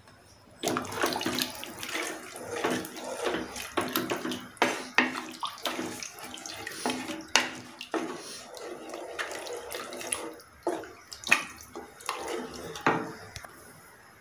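Wooden spoon stirring water and masala in an aluminium pressure cooker: the liquid sloshes and swirls, with frequent sharp knocks of the spoon against the pot, stopping about a second before the end.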